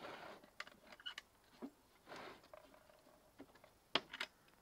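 Quiet handling sounds at a ferret carrying box as a ferret is lifted out: scattered light clicks and knocks with a couple of short rustles, the sharpest knock about four seconds in.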